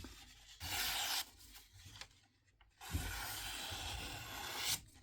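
A freshly sharpened fillet knife slicing through paper, twice: a short cut about half a second in, then a longer, steady cut lasting nearly two seconds.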